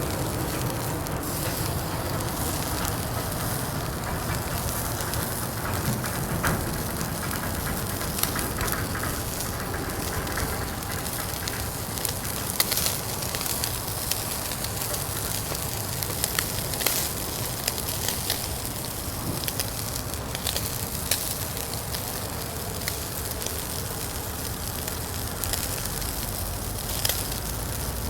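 Fire crackling in a Uniflame Fire Grill fire stand: a steady hiss with many short, sharp pops.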